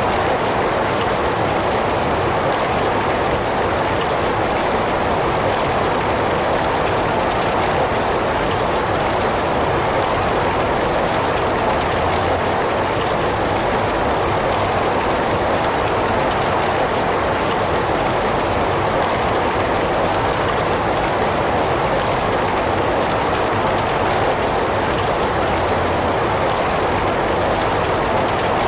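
Heavy rain falling, a steady dense hiss with no breaks or distinct drops standing out.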